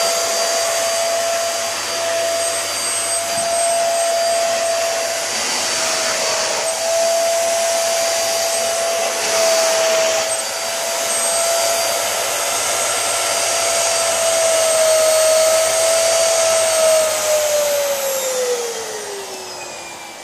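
Upright vacuum cleaner with a 1590-watt motor running at high suction power with a steady whine, somewhat loud. Near the end the power is turned down, and the motor's whine falls in pitch and gets quieter as it settles at the low setting.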